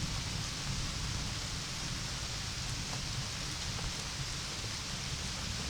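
Steady rain falling: a constant hiss with a few faint drop ticks over a low rumble.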